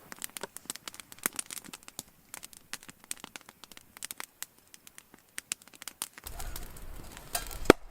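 Foil crinkling and tearing in quick clicks as a sparkling wine bottle is unwrapped, then a single sharp pop near the end as the cork comes out.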